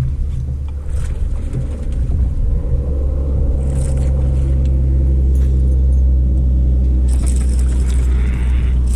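Steady low rumble of a vehicle under way, growing a little louder a couple of seconds in, with some brief hiss near the end.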